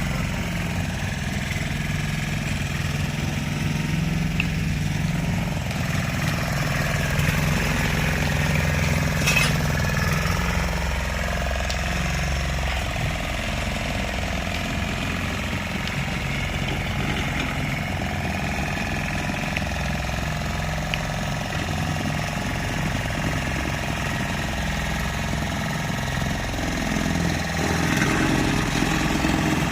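Road roller's engine running steadily.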